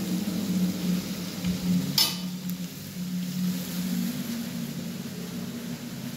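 Sliced onions frying in oil in a metal kadai, a steady sizzle over a low hum, with one sharp click about two seconds in.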